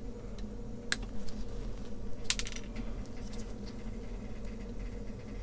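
A few sharp plastic clicks and snips as a styrene kit sprue is handled and a part is cut from it with sprue cutters. The loudest click comes about a second in, with a quick cluster just after two seconds, over a steady low hum.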